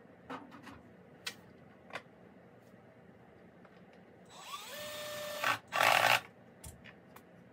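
A few light knocks of handling, then a power drill whining for about a second and a louder half-second burst as it works into a wooden shelf board.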